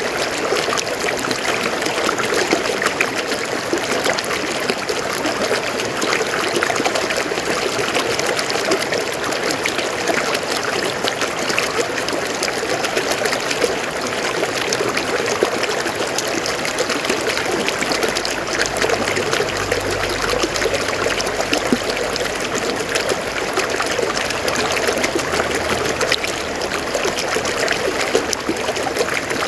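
River water flowing steadily over rocks, a continuous babbling and splashing rush. A faint low rumble joins it from a little past the middle to near the end.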